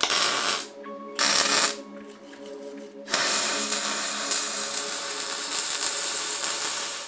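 MIG welding arc crackling on steel: two short beads in the first two seconds, then a steady run of about four seconds. Background music plays underneath.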